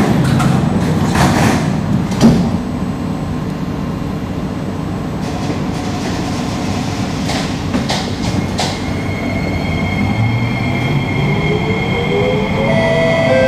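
Metro train doors sliding shut and closing with a thump about two seconds in, then the electric train starting off. Its traction motors whine, rising in pitch over the last few seconds as it gathers speed.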